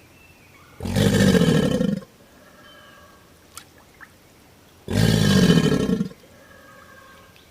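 Crocodilian bellowing: two deep, rumbling calls of about a second each, the first about a second in and the second about five seconds in.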